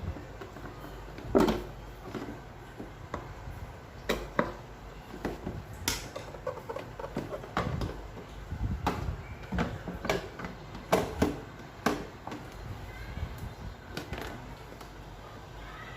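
Irregular knocks and clicks of plastic parts of an evaporative air cooler being handled and fitted together. The loudest knock comes about a second and a half in.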